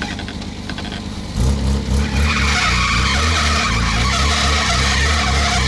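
Lifted off-road GAZ Volga's engine running, then revved hard about a second and a half in and held at high revs, with its big mud tyres spinning in the leaf litter on the slope.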